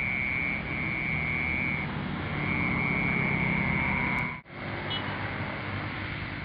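Crickets and cicadas calling with a steady high-pitched trill over a steady low rumble. The sound briefly breaks off about four and a half seconds in, then carries on.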